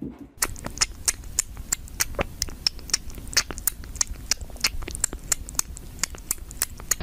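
Cat sucking at the teat of a small feeding bottle, making quick wet clicking and smacking sounds, several a second.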